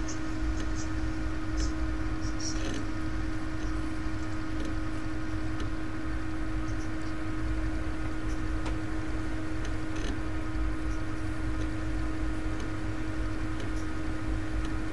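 Steady room tone: a constant electrical hum with a low rumble underneath and faint scattered ticks.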